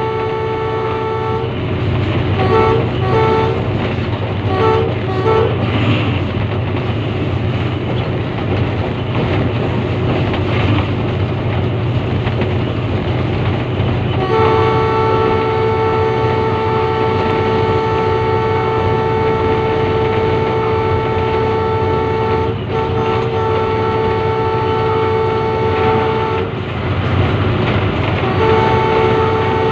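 Diesel locomotive's horn blowing close by over the steady rumble of the running train: a blast at the start, a string of short toots a few seconds in, then long blasts from about halfway, broken twice, with another starting near the end.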